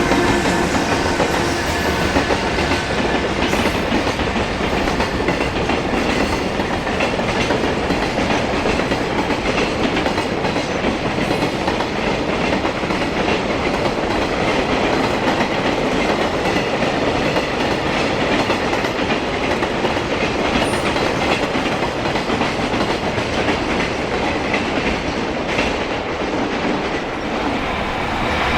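Freight train of container flatcars rolling past, a steady rumble with the clickety-clack of wheels over rail joints.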